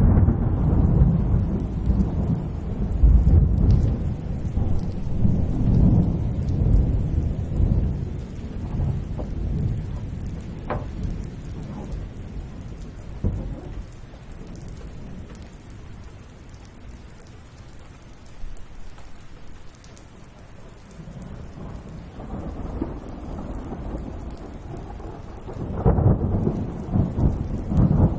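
Thunder rumbling over steady rain. The rumble is heaviest in the first several seconds, dies down through the middle, and swells again near the end.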